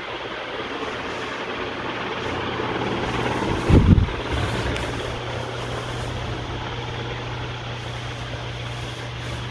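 Ventisol Fênix ceiling fan running steadily, its motor giving a constant low hum under the rush of air from the blades. A brief loud low thump about four seconds in.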